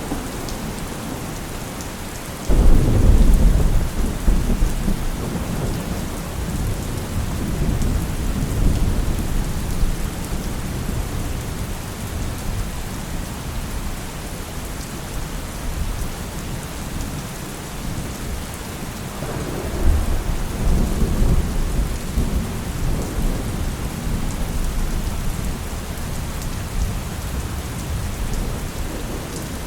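Heavy rain falling steadily, with thunder rolling twice: a sudden crack-and-rumble a couple of seconds in that fades over several seconds, and a second rumble a little past the middle.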